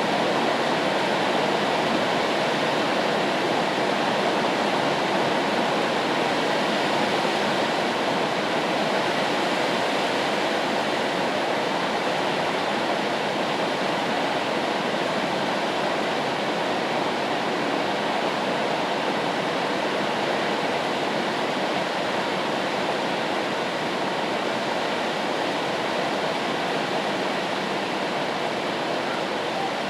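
Steady rain noise used as white noise: a continuous, even rushing hiss with no separate drops or other sounds standing out.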